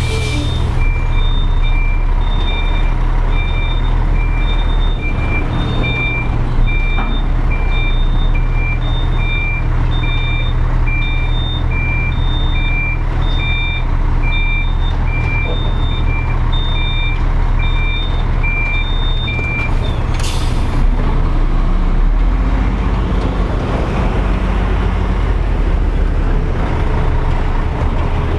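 Bitrem truck reversing: its reverse alarm beeps steadily in two tones, a little over once a second, over the diesel engine running at low revs. About twenty seconds in, a short hiss of air from the air brakes, and the beeping stops.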